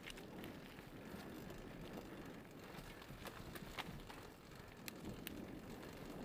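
Giant Faith 2 26-inch downhill mountain bike rolling fast down a dirt trail covered in dry leaves, tyres crunching over the litter, with several sharp clicks and rattles from the bike and the ground.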